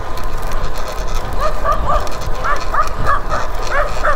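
Dogs barking in a quick run of repeated barks, starting about a second and a half in and going on, over a steady low rumble of wind on the microphone.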